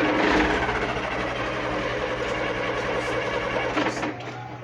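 An engine running steadily with a constant drone.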